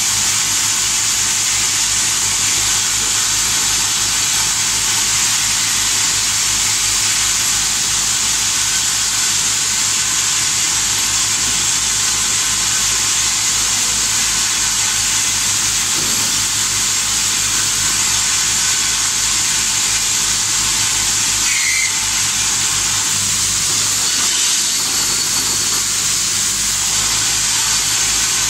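Tube film packing machine running: a steady high hiss with a low, fast-pulsing hum underneath.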